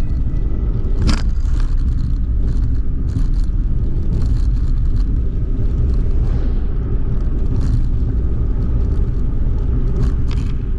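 Suzuki Hustler kei car driving along a road: a steady low road and tyre rumble, with a few sharp knocks, one about a second in and another near the end.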